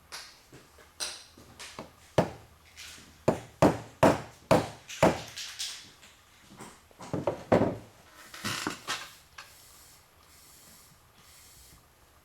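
A run of sharp knocks and clicks, closely spaced from about two to five seconds in and again from about seven to nine seconds in: hand tools and small parts being handled and tapped during steering-column work.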